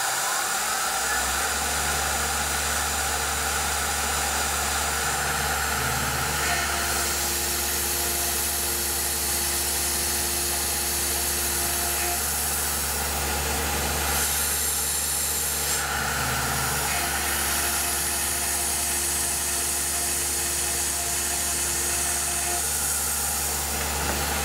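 Tormach PCNC 1100 CNC mill's spindle running at about 5,100 RPM while a 4-flute carbide roughing end mill cuts a full-width slot in 6061 aluminum at 30 inches a minute. A steady cutting tone rises over the spindle hum during two stretches of the cut, one in each half.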